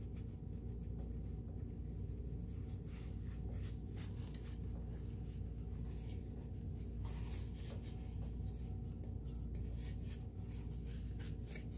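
Soft rubbing and scuffing of a cloth wiping inside the open top of a Kenmore sewing machine, drying the mechanism after degreasing, over a steady low hum. A single small click about four seconds in.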